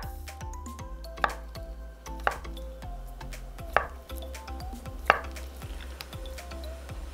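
Kitchen knife slicing through acorn jelly (dotorimuk) into strips, the blade knocking on a wooden cutting board about five times, roughly once a second. Soft background music plays throughout.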